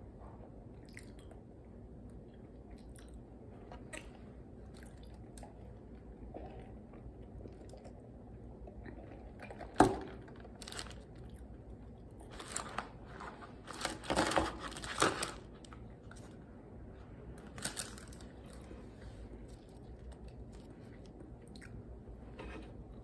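Close-up eating sounds: a person chewing and biting into a fast-food burger and fries. There is a sharp click about ten seconds in, then a louder noisy stretch a few seconds later and a shorter one near the end.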